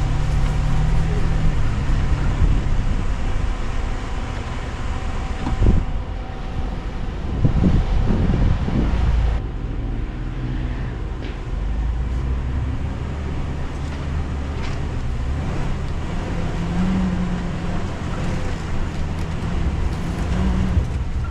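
Mitsubishi Montero SUV creeping along a rutted dirt trail: the engine runs in a steady low drone, with rumble and a few thumps from the tyres and body going over bumps, most of them a little past the middle.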